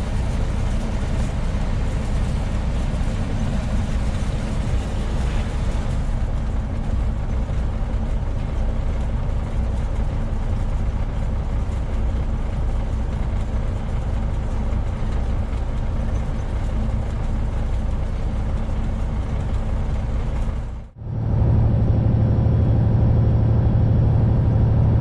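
Semi-truck diesel engine and road noise heard from inside the cab while driving, a steady low drone. About 21 seconds in it drops out for a moment, then comes back with a stronger, deeper steady hum.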